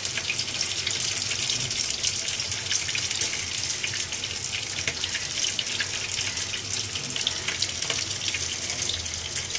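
Cooked khichuri sizzling in its pot on the stove: a steady hiss with fine crackles.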